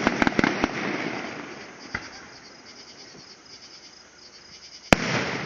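Fireworks going off: a sharp bang followed by a quick run of crackling pops in the first second, a single pop about two seconds in, and another loud bang near the end that dies away slowly. Crickets chirp steadily underneath.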